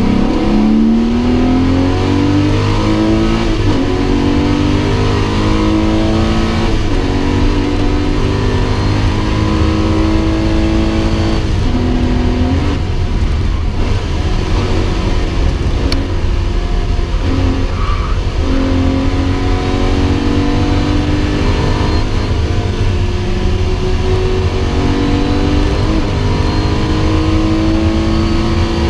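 Porsche 911 (993) 3.6-litre air-cooled flat-six heard from inside the cabin under hard acceleration. It climbs in pitch through each gear and drops back at each upshift, several times over, over a steady rumble of tyre and road noise.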